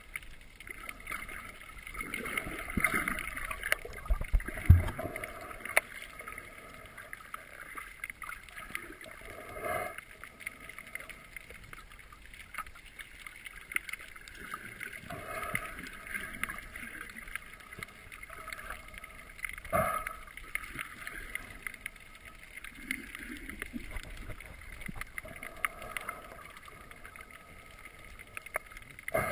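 Underwater sound heard through a GoPro's waterproof housing: muffled water movement with scattered small clicks and crackles, and a few louder knocks, the strongest a low thump about five seconds in.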